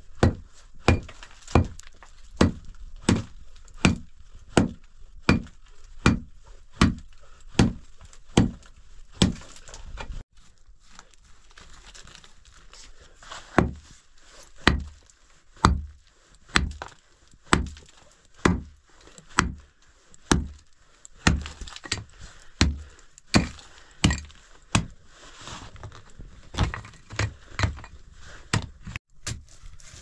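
Small pickaxe striking hard, stony ground in steady blows, about one every three-quarters of a second, breaking up soil and rock; the blows stop briefly around ten seconds in, then resume at the same pace.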